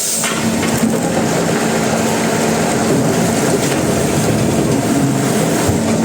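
Sawmill machinery running: a loud, steady mechanical clatter with a low hum underneath.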